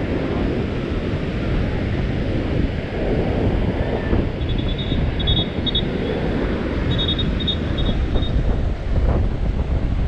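Wind buffeting the microphone over the steady wash of surf breaking on the beach.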